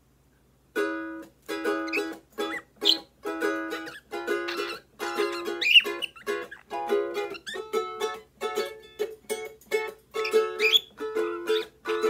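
Ukulele strummed in steady rhythmic chords, starting about a second in, with short high chirps from pet birds, a budgerigar and a cockatiel, over the strumming.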